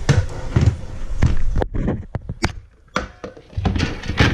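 Dog food being put out: a run of dull thunks and knocks from bowls and containers being handled, with a few sharp clicks about two seconds in.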